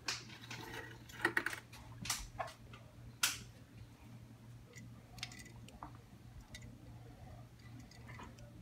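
A few sharp clicks and taps from handling plastic containers while feeding crickets to a tarantula, then fainter scattered ticks, over a steady low hum.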